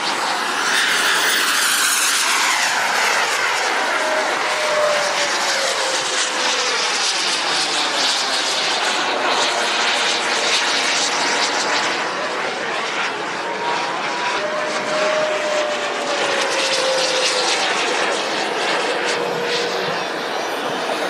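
Jets Munt Merlin M90 turbine of a 1/7-scale F-16 model jet running in flight: a steady rush with a whine that glides down in pitch as the jet passes, twice.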